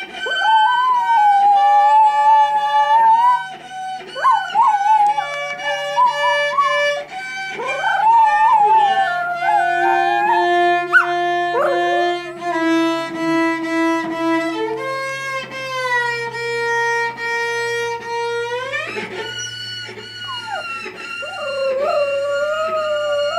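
Small dachshund howling along with a cello playing long bowed notes. The dog's wavering howls slide up and down in pitch over the steady cello tones, with a sharp upward sweep near the end.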